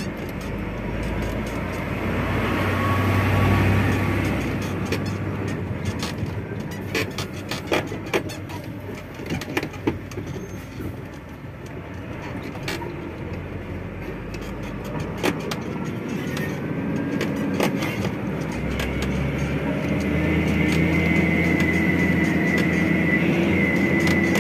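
Dump truck driving over a rough dirt road, heard from inside the cab: a steady engine and road rumble with frequent clicks and knocks as the cab rattles over bumps. About three-quarters of the way through, a steadier, higher engine whine comes up, rises slightly in pitch and grows louder as the truck pulls harder.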